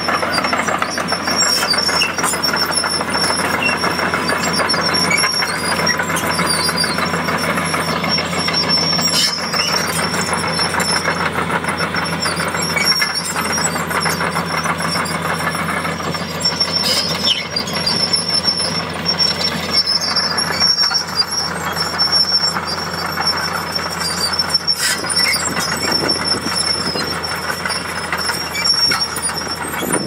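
Hitachi hydraulic excavator travelling on its steel tracks: the diesel engine runs steadily under a clattering of track links, with a thin high-pitched squeal over it.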